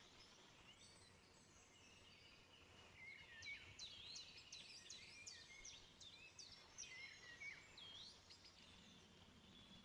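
Faint birdsong: many quick chirps and short whistles, busiest from about three seconds in until near the end, over a quiet room.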